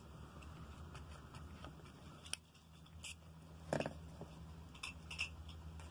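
A few faint clicks and taps of small bottles and packaging being handled, the loudest a little before four seconds in, over a low steady hum.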